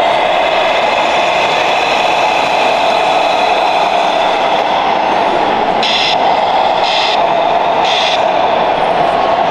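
RC model construction machines running: a steady, engine-like machine sound, with three short hissing bursts about a second apart near the end.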